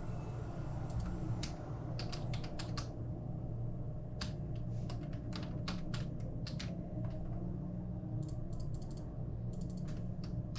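Keystrokes on a computer keyboard, typed in irregular bursts of quick clicks, over a steady low hum.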